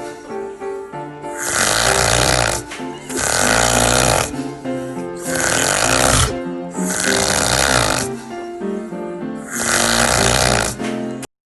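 A person snoring in a steady rhythm, about one long snore every two seconds, five in all, over background music. The snoring and music cut off suddenly near the end.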